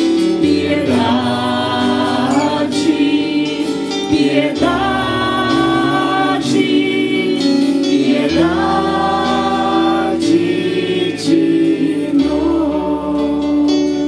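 Church choir singing a slow liturgical chant in four phrases of about two seconds each, over held low accompaniment notes that change with each phrase.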